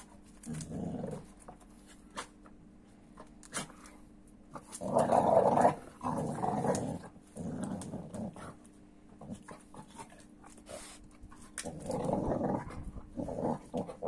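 American Staffordshire terrier making play-growls at a Kuvasz puppy as they wrestle, in short grumbling bouts, the loudest about five seconds in and more near the end.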